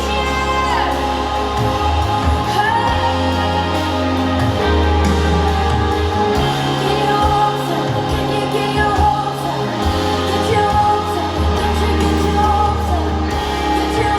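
Live worship song playing: a singer's sustained, gliding vocal lines over held keyboard chords and deep bass notes.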